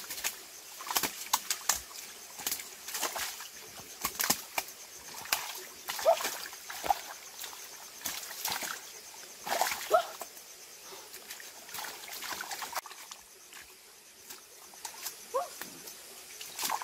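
Hands splashing and sloshing in a shallow rocky stream while grabbing catfish from under the stones: irregular splashes, some sharper than others.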